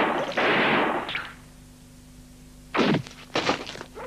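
Cartoon gunshot sound effects: two loud blasts at the start, each with a noisy tail of about half a second. About three seconds in come shorter sharp bangs, one sliding down in pitch.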